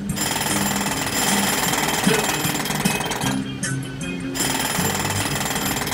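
Jackhammer hammering, stopping for about a second midway, over a music track.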